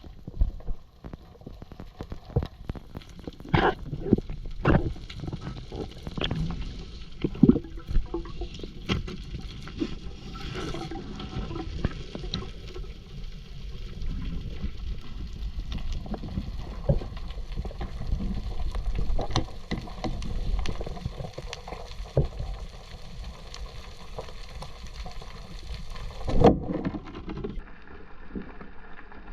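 Water moving and gurgling around a diver's camera, with a low rumble and many scattered sharp clicks and knocks; the sound changes abruptly near the end.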